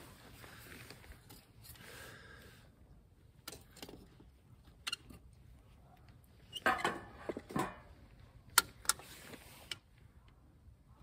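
Scattered clicks and knocks of things being handled, with a louder clatter about seven seconds in and two sharp clicks shortly after.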